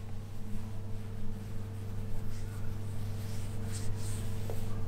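A low steady hum, with faint brief rustles of a hand stroking a cat's long fur in the second half.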